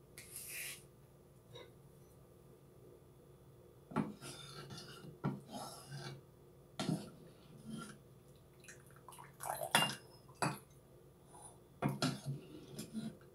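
Plastic ladle knocking and scraping inside a stainless steel soup pot, with soup sloshing. The knocks come irregularly, a dozen or so, the loudest a little past the middle.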